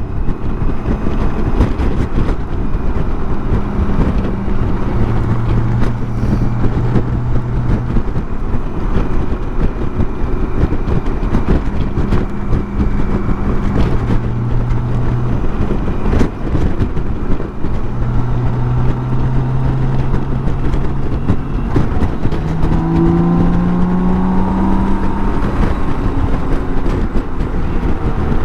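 BMW K1600 GTL's inline-six engine running on the move under heavy wind rush on the microphone. Its note holds steady for long stretches, then rises as the bike accelerates, about three-quarters of the way through.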